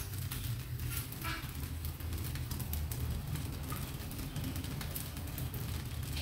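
Light clicks and knocks of cooking utensils and a seasoning bottle being handled at a gas stove, over a steady low hum.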